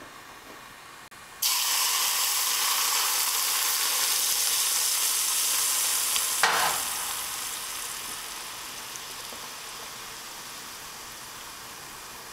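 Smoking-hot oil poured onto minced ginger, scallions and salt in a stainless steel bowl: a loud sizzle starts suddenly about a second and a half in, holds steady for around five seconds, then dies down slowly. A short knock sounds about halfway through.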